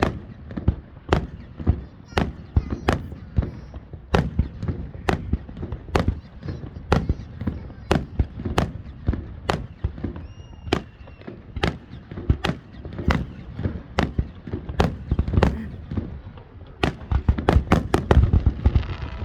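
Aerial fireworks shells bursting in a steady series, about two to three bangs a second. The bangs crowd into a rapid barrage near the end.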